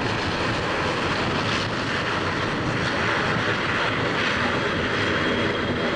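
Jet engines of an easyJet Airbus A320-family airliner at take-off power, a loud, steady rush as it begins its take-off roll. A thin high whine joins about four seconds in.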